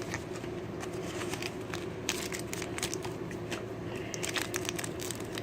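Foil booster-pack wrapper crinkling and crackling in the hands as a Pokémon card pack is opened, a fast irregular run of small crackles.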